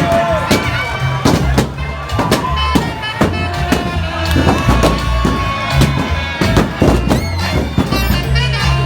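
Live band playing an instrumental passage: drums keep a steady beat under a heavy bass line and held, bending melody notes.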